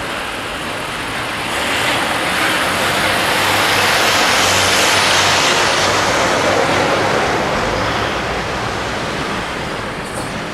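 Road traffic passing close: an Iveco dump truck's diesel engine and tyres, swelling to their loudest a few seconds in as the truck goes by, with cars following behind.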